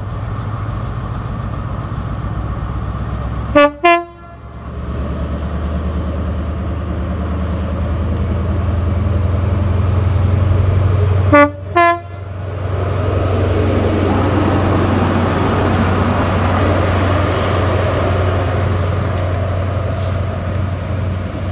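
HST (InterCity 125) Class 43 diesel power car running past at low speed, sounding its two-tone horn twice, about eight seconds apart, each a short low-then-high pair. After the second blast the engine and wheel noise swells as the train draws by.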